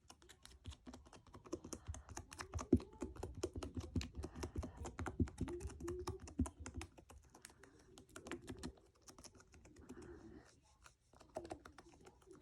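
Slime being mixed: a fast, irregular run of small sticky clicks and pops. It is busiest for the first several seconds and thins out toward the end.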